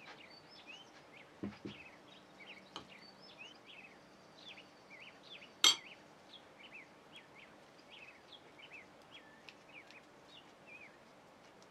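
Faint birdsong, short chirps throughout, under kitchen handling sounds: two soft knocks about a second and a half in, and one sharp clink near the middle as the filling is taken from a bowl.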